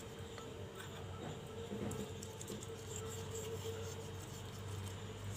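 Faint rubbing and light clicking of a plastic modak mould as it is handled and greased by hand, over a low steady hum.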